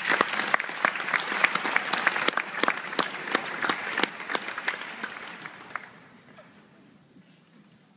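Audience clapping in welcome for a soloist, dense at first, then thinning and dying away about six seconds in.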